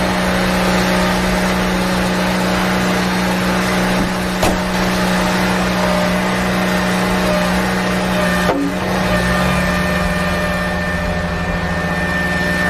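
A toy tractor's motor running with a steady drone. There are a few sharp clicks, and the low sound shifts about eight and a half seconds in.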